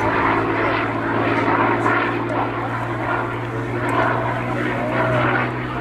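Propeller-driven Second World War fighter with a Rolls-Royce Merlin V12 engine running steadily in display flight, a constant droning pitch.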